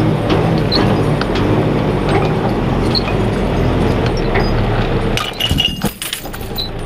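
Turbo diesel engine of a John Deere 540D skidder running steadily while it drags a bundle of logs, with metal clinking and rattling throughout. About five seconds in there is a burst of clattering and the engine note briefly drops before picking up again.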